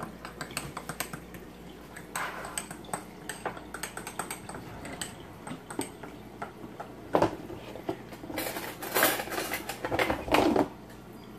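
A spoon clinking and scraping against a small glass bowl as brown gravy mix is stirred, in quick light taps. Near the end come several louder handling noises.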